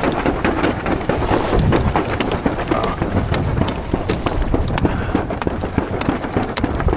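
Wind and water on a small sailing catamaran: wind buffeting the microphone and water splashing and slapping at the hulls, with many small sharp ticks throughout.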